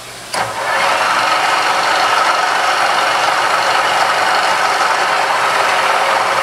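Large drill press switched on with a click about half a second in, then running steadily, its spindle turning an annular cutter that is spinning free above the steel and not yet cutting.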